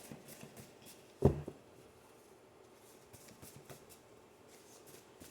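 Quiet room with faint rustles and ticks of tarot cards being handled, and one sharp thump about a second in.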